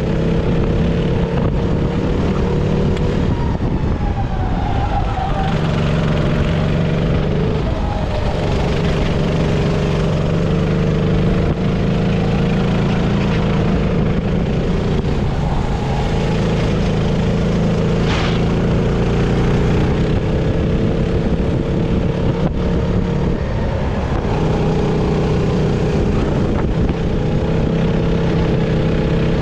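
Onboard sound of a Sodi RT-8 rental kart's single-cylinder four-stroke engine running hard at racing speed, its pitch dipping and recovering several times as the throttle eases for corners. A brief high-pitched squeal sounds about two-thirds of the way through.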